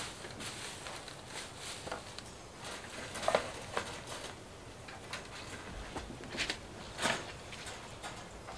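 Handfuls of fresh grass and clover rustling as they are pulled from a plastic crate and pushed into wire rabbit cages, with scattered light clicks and rattles. The sharpest come about three seconds in and again around seven seconds in.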